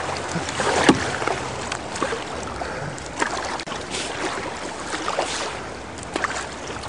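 Fast river water rushing and splashing around a kayak in rough current just below a small waterfall, with many short sharp splashes; the loudest comes about a second in.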